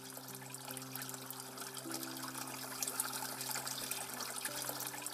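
Water pouring and splashing, growing louder over the first three seconds, over low sustained music notes that change about two seconds in.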